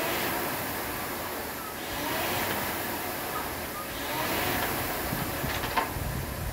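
Air rowing machine's fan flywheel whooshing, swelling with each stroke about every two seconds. A few sharp clicks near the end as the rowing stops.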